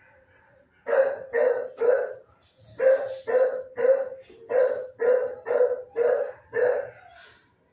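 A dog barking, about eleven barks in three quick runs with short pauses between them.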